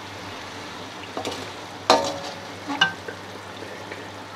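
A slotted metal spatula stirs chicken and whole tomatoes in a metal karahi, with a few sharp scrapes and knocks against the pan; the loudest comes about two seconds in. A steady sizzle of frying oil runs beneath.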